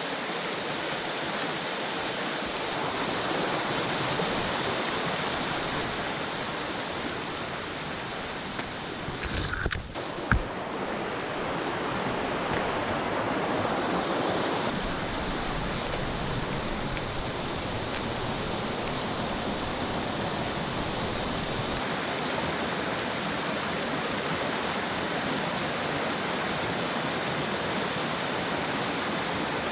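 Shallow rocky stream rushing steadily over stones and small rapids. A single sharp knock sounds about ten seconds in.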